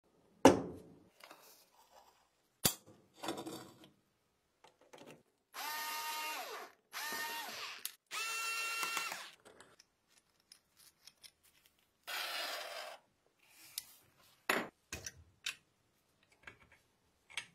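A small handheld rotary tool run in three short bursts against the steel cutter of a pencil sharpener, each burst a whine that falls in pitch as the tool spins down. Around them, sharp knocks and clicks of the metal parts being set down and handled, the loudest right at the start, and a short scraping burst without a whine later on.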